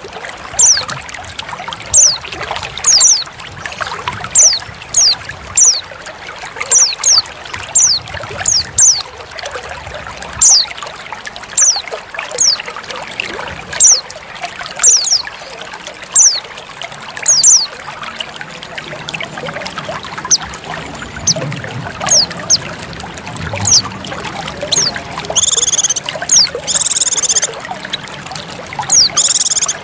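Trickling water with a female white-eye (pleci) calling over it: short, high notes that slur downward, about one or two a second. Near the end come a few longer, buzzy calls.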